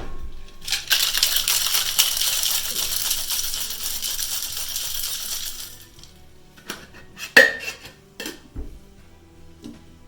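Ice rattling inside a cocktail shaker as the drink is shaken hard for about five seconds. A few separate sharp knocks follow.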